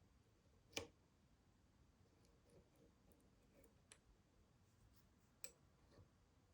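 A handful of faint, sharp clicks from a Euro lock cylinder and Lishi pick being handled, the loudest about a second in and another about five and a half seconds in.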